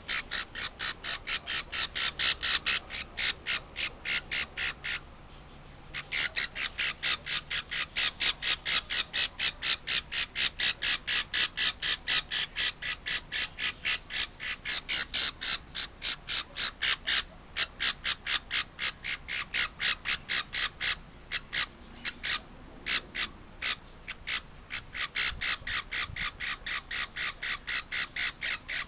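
Baby parrot chick calling in a fast, unbroken run of short, high, harsh cheeps, about four a second, pausing briefly about five seconds in and turning more broken past the middle.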